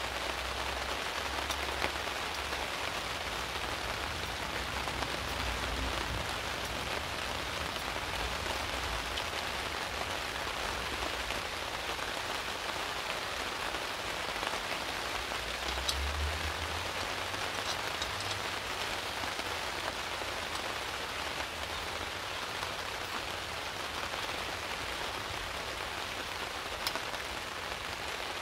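Steady rain falling on a tarp overhead, an even patter with the odd sharper drop.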